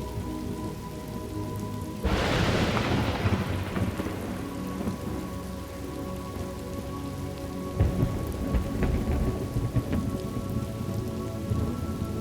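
Steady rain with thunder: a sudden loud thunderclap about two seconds in that dies away over a couple of seconds, then a crackling rumble of thunder about eight seconds in.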